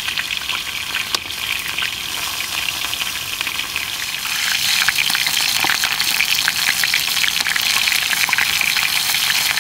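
Food frying in very hot oil, a steady crackling sizzle that grows louder about halfway through.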